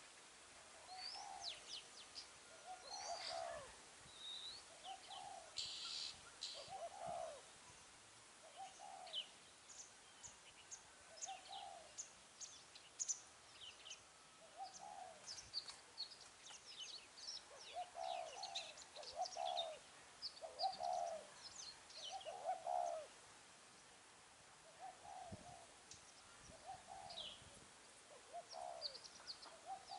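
Spotted doves cooing in short, low, repeated phrases every second or two, over scattered high chirps and twitters of small birds.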